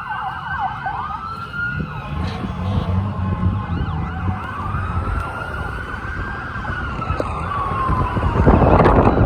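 Several emergency vehicle sirens wailing at once, their rising and falling tones overlapping, over the low rumble of vehicle engines. A loud rushing noise swells near the end.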